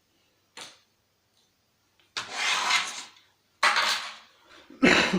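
Parts of a disassembled PlayStation 3 being handled and moved: a small click, then three short bursts of scraping and rattling.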